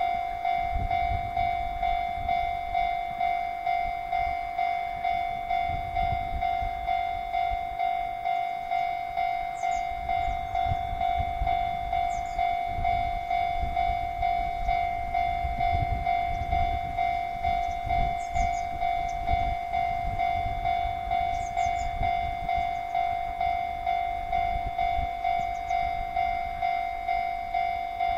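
Japanese level-crossing warning bell starting suddenly and then ringing steadily in an even electronic ding, about one and a half strikes a second, warning that a train is approaching. An uneven low rumble runs underneath.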